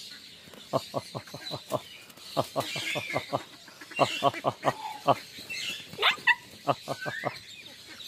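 Farmyard poultry calling in quick runs of short, low calls, several a second, with a few higher bird chirps mixed in.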